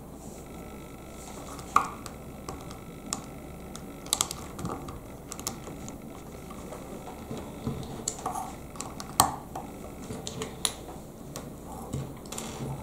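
Lego bricks being snapped together and handled: a scatter of irregular sharp plastic clicks and small taps.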